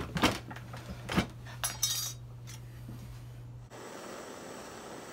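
Metal clinks and knocks at a jewellery rolling mill, with one bright ringing clink about two seconds in. Just before four seconds in, this gives way to the steady hiss of a gas torch flame.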